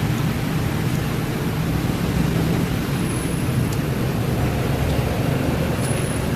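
Steady low rumbling background noise, with a faint hiss above it.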